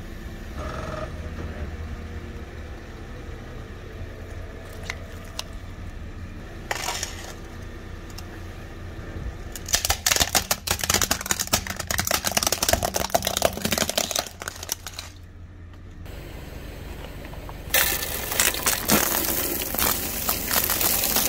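A car tyre rolling over and crushing plastic objects: a dense run of crackling and crunching about halfway through, then after a short break another stretch of crackling as liquid-filled plastic bottles burst under the tyre. A low car engine rumble sits underneath.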